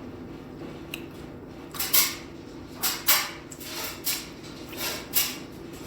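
Someone eating rambutan close to the microphone: four short, hissy sucking noises about a second apart.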